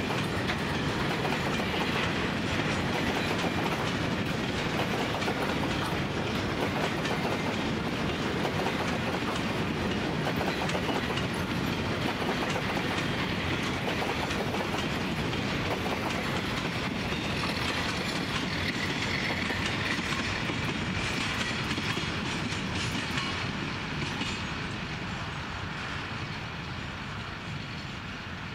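Empty grain hopper wagons rolling past, their wheels clattering over the rail joints in a steady clickety-clack, fading as the end of the train draws away near the end.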